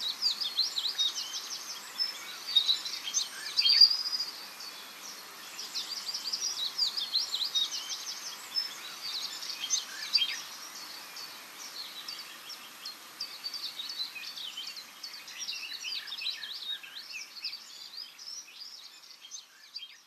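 Small songbirds singing: phrases of quick, high, downward-sliding chirps, one after another every second or two, over a faint steady outdoor hiss.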